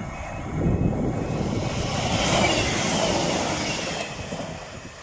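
Diesel multiple unit passing at speed over a level crossing close by. The rumble of its engine and wheels builds to a peak of wheel-on-rail hiss and rushing air about halfway through, then fades away. Gusts of wind buffet the microphone.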